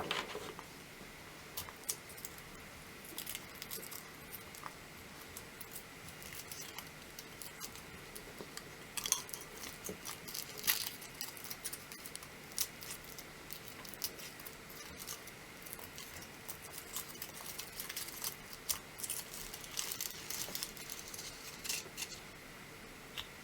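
Foil wrapper being peeled off a large chocolate Kinder egg: faint, scattered crinkles and ticks, irregular throughout, over a faint steady hum.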